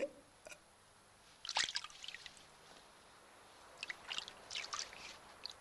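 Water scooped from a large earthenware jar with a ladle: a sharp knock about one and a half seconds in, then small splashes and dribbles a little before the end.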